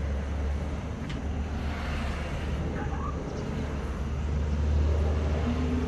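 A steady low rumble with outdoor background noise, with a few brief faint buzzes near the end.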